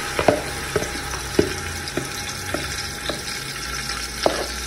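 Marinated chicken sizzling as it goes into hot oil in a pan. A spoon or utensil knocks lightly about every half-second.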